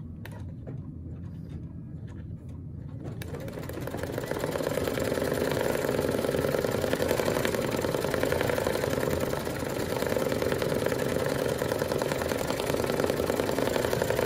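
Brother Luminaire embroidery machine starting to stitch. Its needle mechanism picks up speed about three seconds in, then runs steadily with a fast, even stitching rhythm.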